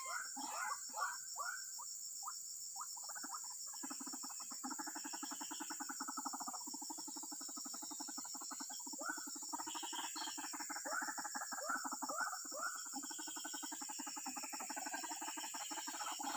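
White-breasted waterhens (ruak-ruak) calling: a run of quick falling calls at first, then a long rapid rattling, croaking series that carries on through the rest, over a steady high drone of insects.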